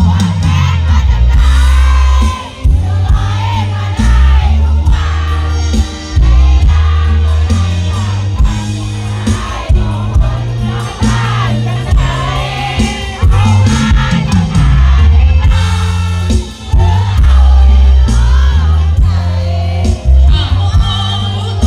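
Loud music with a heavy bass line and singing voices running throughout.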